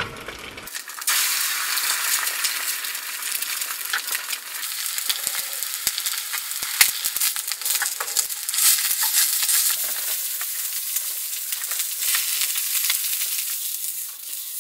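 Eggs frying in oil in a metal frying pan: a steady sizzle and crackle with scattered sharp clicks and pops, starting about a second in.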